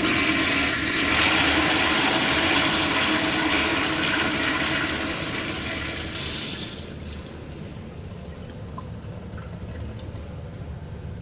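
Kohler toilet flushing: a loud rush of water that dies down about seven seconds in.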